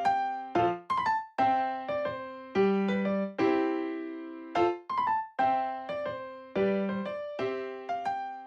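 Background piano music: a gentle repeating phrase of struck notes, each ringing and fading before the next.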